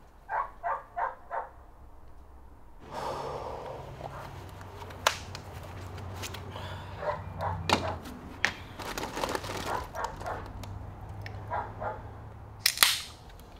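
A dog barks four times in quick succession, then barks again off and on amid small clicks and a steady low hum. Near the end, a short sharp hiss: a seltzer can being cracked open.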